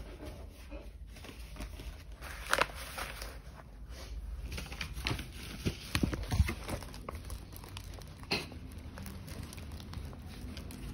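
Rolled paper sticker sheets and a paper gift bag rustling and crinkling as they are handled and packed, with a few sharper knocks and bumps spread through.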